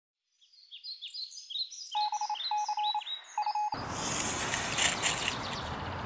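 A quick series of high, falling bird-like chirps, joined about two seconds in by short electronic beeps in broken bursts; just before four seconds a loud, even rushing noise takes over.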